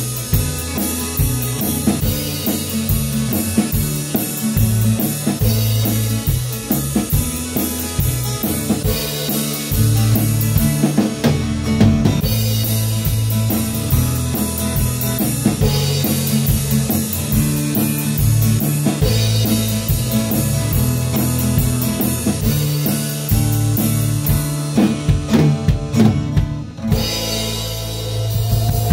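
Band rehearsing with a full drum kit played with sticks, crashing and riding cymbals over snare and bass drum, alongside guitar and a low bass line. The cymbals drop out briefly near the end.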